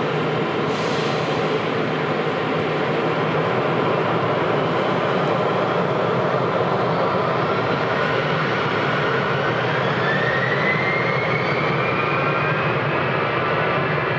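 Jet airliner or business jet engines running at high power on the takeoff roll: a steady roar with a whine that rises in pitch through the second half.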